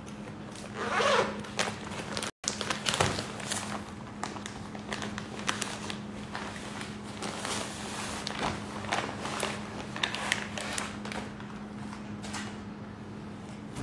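Clear plastic packaging crinkling and rustling in irregular bursts of scrapes as hands open the bag and handle the folded fabric inside.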